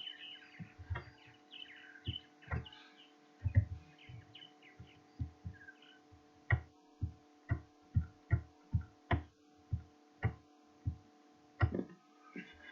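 Irregular low thumps and clicks, roughly one or two a second, from a computer mouse being clicked and knocked on a desk, over a steady electrical hum.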